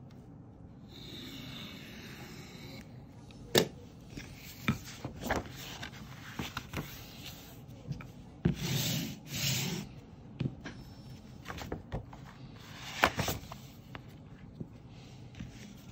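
Stiff paper pattern sheet being handled and folded in half on a tabletop: rustling and rubbing, with scattered sharp knocks, the loudest a few seconds in and another late on.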